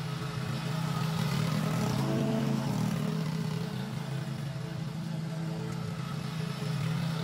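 Walk-behind petrol lawn mower engine running steadily while cutting grass, a little louder in the middle as the mower comes nearer, then easing off as it moves away.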